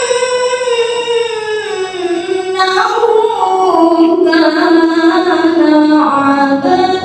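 A woman reciting the Quran in the melodic tilawah style through a microphone. She holds long, ornamented notes that glide up and down in pitch, and a new phrase begins about two and a half seconds in.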